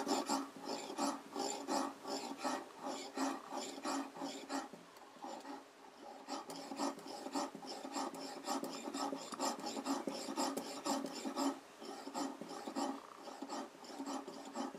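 Oil whetstone on a guided sharpening system being stroked back and forth along a kitchen knife's edge, a steady run of rasping strokes that goes softer for a moment about five seconds in.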